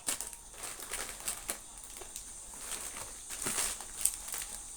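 Chocolate packaging being handled: wrappers crinkling and rustling, with scattered sharp clicks.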